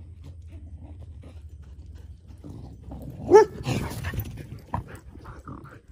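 Dogs running up to and past the camera at close range: one short, loud bark about three seconds in, then a burst of close rustling and paw thuds on the grass, with one sharp thump a little later. A low steady rumble lies under the first two seconds.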